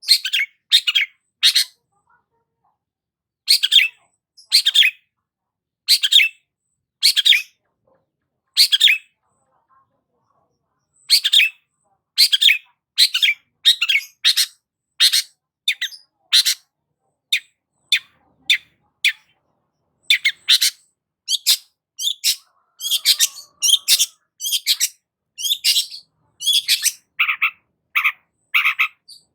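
Long-tailed shrike (cendet) calling: short, harsh, high-pitched notes, mostly in pairs and threes with pauses between, coming faster and more steadily from about the middle on. Near the end some lower, buzzier notes.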